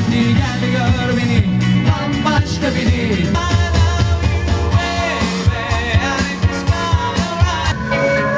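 Live band playing a song: a singer over electric guitars and a steady drum beat.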